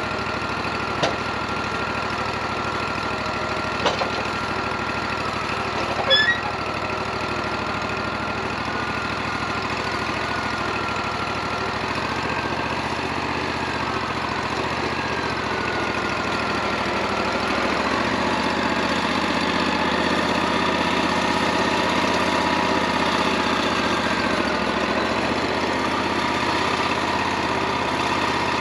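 Wood-Mizer LT40 bandsaw sawmill running steadily, with a few sharp knocks in the first six seconds. About halfway through, its tone shifts and the sound grows a little louder.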